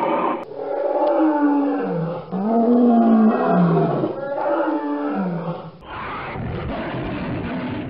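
Dinosaur roar sound effects: three long roars, each swelling and falling in pitch, followed about six seconds in by a rougher, noisier growl.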